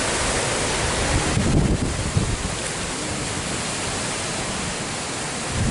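Strong wind buffeting the microphone: a steady, loud rushing noise with heavier low gusts about one and a half seconds in.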